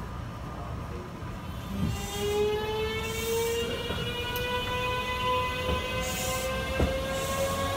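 Kintetsu 23000 series Ise-Shima Liner pulling away from standstill. Its late-type Mitsubishi GTO VVVF inverter, still on its original unmodified software, makes a whine of several tones together that starts about two seconds in and climbs slowly in pitch as the train gathers speed.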